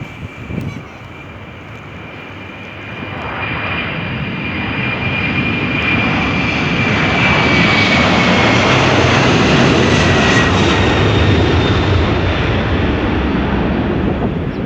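Jet airliner passing close by: the engine noise swells over several seconds to a steady peak, and its high whine drops in pitch as the aircraft goes past.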